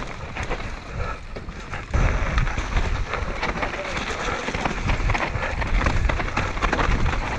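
Mountain bike riding fast down a loose, rocky dirt trail: tyres crunching and skittering over gravel and stones, with the bike rattling. It gets louder and rougher about two seconds in.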